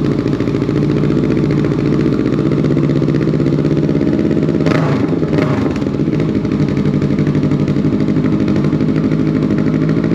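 Kawasaki Vulcan S 650's parallel-twin engine idling steadily in neutral after a cold start, through a Delkevic full exhaust system with a 21-inch bull-nose silencer.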